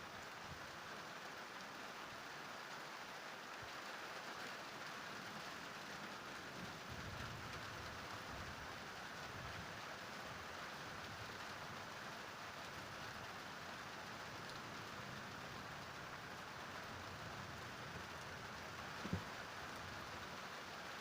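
Steady rain falling during a thunderstorm, an even hiss of rain on surfaces, with one brief thump near the end.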